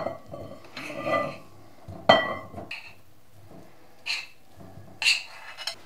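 A utensil scraping and tapping crumbled cheese-and-margarine mixture off a ceramic plate into a glass mixing bowl: about five short clinks and knocks, roughly a second apart, a few of them ringing briefly.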